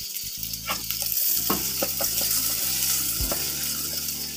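A pita-type flatbread frying in a thin film of very hot oil in a pan on a gas burner, sizzling steadily, with a few short knocks as the bread and pan are handled.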